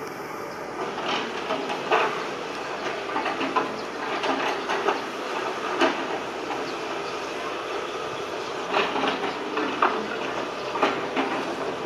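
Sumitomo SH125 hydraulic excavator working: its engine runs steadily under an irregular string of sharp clanks and scrapes as the bucket digs into soil and rubble.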